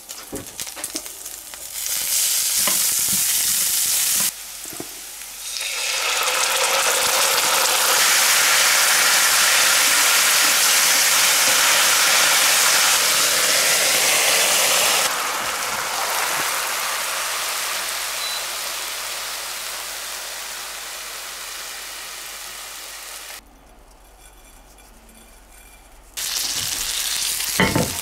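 Leftover marinade sizzling in a hot frying pan: a steady, loud sizzle that swells about a third of the way in, holds for several seconds, then slowly dies down and breaks off. A few short clinks come near the end.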